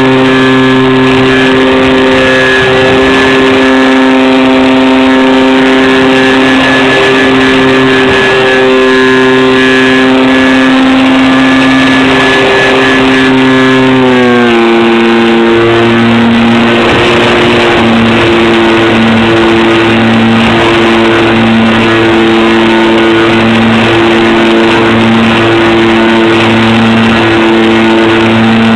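Electric motors and propellers of a homemade twin-engine RC plane running at a steady high-pitched drone, which drops in pitch about halfway through as the throttle is eased back and then wavers in a pulsing beat.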